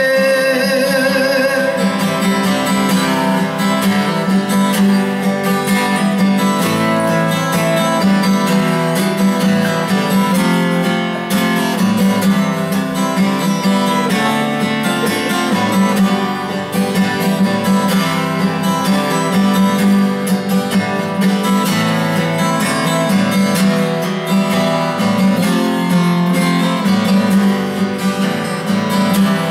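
Acoustic guitar strummed through an instrumental interlude of a Japanese folk song. A singer's held, wavering last note fades out within the first two seconds.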